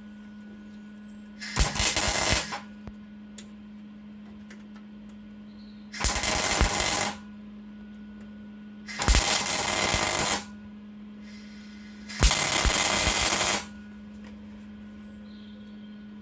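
MIG welder laying four short welds on a sheet-steel floor repair panel, each burst about a second long, starting and stopping abruptly, over a steady low hum.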